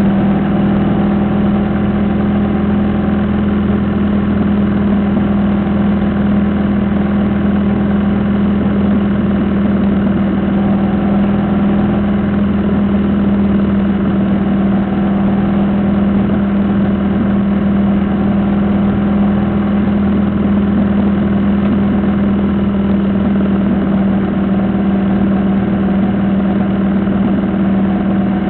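Motorcycle engine running at a steady cruising speed, one even drone that neither rises nor falls, with road and wind noise.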